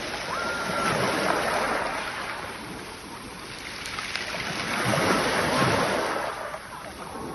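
Sea waves washing onto the shore, the surf swelling and falling twice, a few seconds apart.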